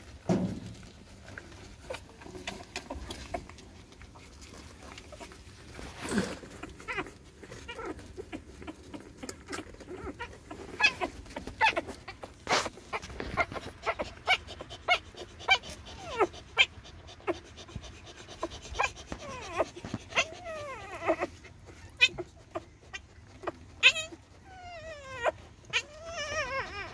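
Newborn puppies nursing: many short wet smacking clicks as they suckle, and in the second half several high puppy whimpers that slide down in pitch.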